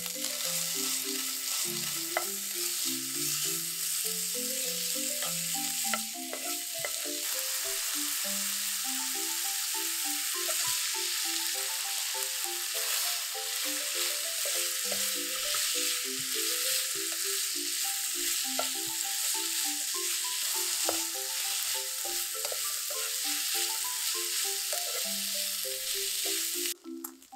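Bacon and sliced onion sizzling in a frying pan with a little oil, stirred with a spatula, with light scraping ticks. The sizzle cuts off suddenly near the end.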